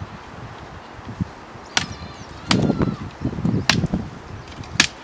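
A sickle chopping into a thin tree stem: four sharp strikes, roughly a second apart, with dry branches rustling between them.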